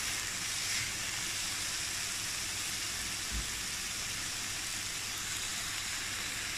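Cabbage and bell peppers sizzling steadily in a wok over a high flame, their released water cooking off.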